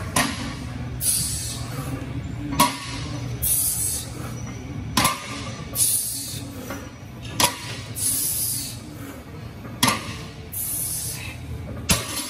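A loaded 405 lb barbell with weight plates knocking down on the gym floor once per deadlift rep, about every two and a half seconds, six times in all, with sharp, hissing breaths from the lifter between reps.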